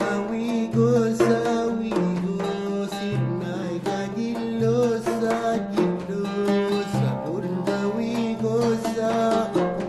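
Background music led by plucked string instruments over a low bass line.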